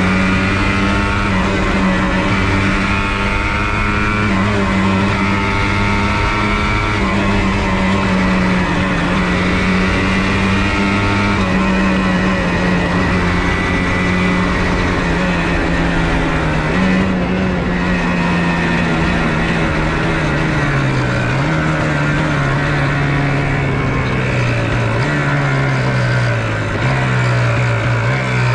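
1994 Yamaha Blaster 200's single-cylinder two-stroke engine running steadily under throttle while riding. Over the last several seconds the revs fall in steps.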